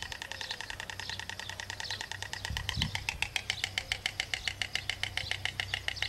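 White stork bill-clattering: a rapid, even run of sharp clacks as the bird snaps its mandibles together. This clattering ('crotoreo') stands in for a call, since the white stork is otherwise almost voiceless.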